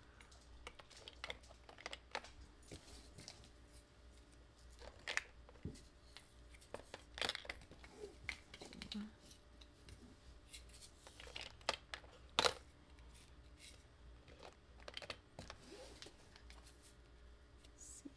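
Scattered light clicks and taps of small plastic Tic Tac containers of diamond-painting drills being handled and set into a clear plastic storage box, a few of them sharper than the rest.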